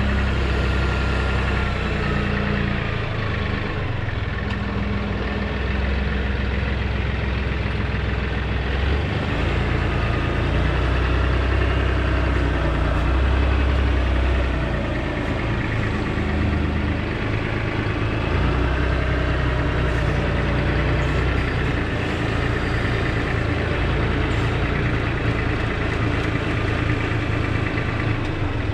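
Tractor engine running steadily with the backhoe or loader, its low note shifting every few seconds as the load changes.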